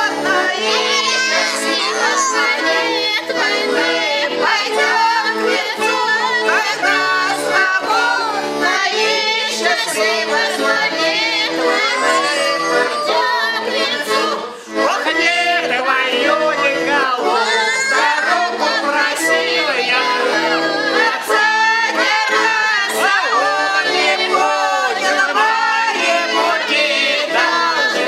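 A garmon (Russian button accordion) playing a folk song while a group of men and women sing along, with a short break in the sound about halfway through.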